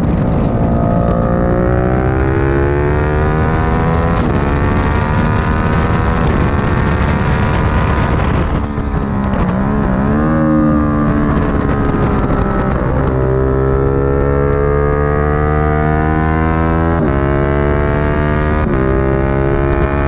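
Sport motorcycle engine under hard acceleration on track, its pitch climbing and then dropping back at each quick upshift. About nine seconds in the revs fall and waver briefly as the throttle closes for a bend, then the engine pulls hard again through several more upshifts.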